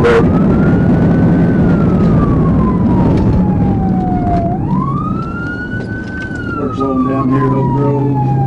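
Police car siren on wail, rising quickly and then falling slowly in pitch, twice, over steady engine and road rumble from the pursuing patrol car.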